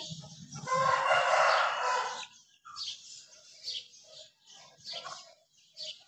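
A rooster crows once, a hoarse crow under two seconds long, followed by a few short, softer clucks and high chirps.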